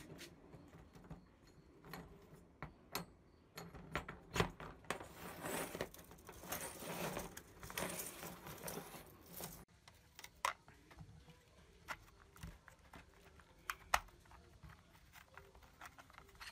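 Flat coiled steel spring being wound tight by hand around a shaft: metal strip clicking and scraping as the coils slide over one another, with a denser rasping stretch in the middle that stops abruptly. Then scattered sharper clicks as the wound spring is pressed into its housing.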